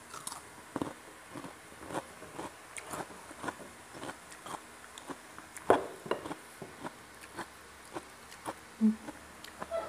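Close-up chewing of a bite of raw cucumber: a string of irregular crisp crunches and wet mouth clicks, a few louder ones about six seconds in and again near the end.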